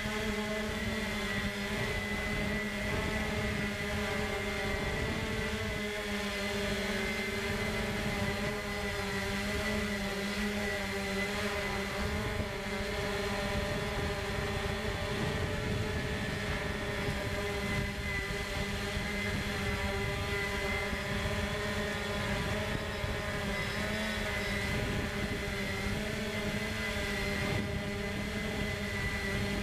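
Drone's electric motors and propellers running steadily, heard from the drone's own onboard camera: a held whine of several tones that wavers slightly in pitch.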